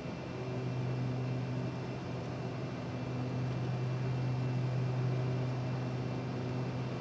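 Steady cockpit noise during an approach: a continuous low hum under an even hiss, with no alert callouts sounding.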